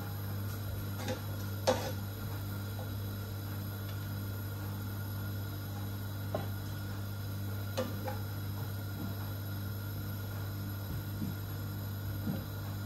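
Steady low hum with a few short, light clicks or clinks, the loudest about two seconds in.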